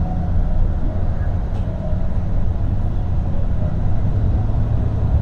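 Steady low rumble of engine and road noise heard from inside a moving vehicle.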